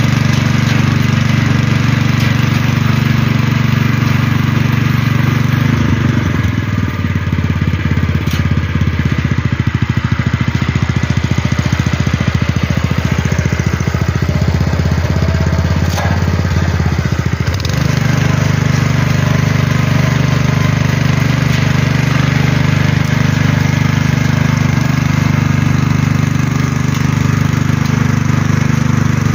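A Toyama Tratorito 212cc mini tiller's single-cylinder four-stroke petrol engine running steadily while its tines churn dry soil. From about six seconds in, for around ten seconds, the engine note turns into a rougher, lower pulsing, then settles back to a steady run.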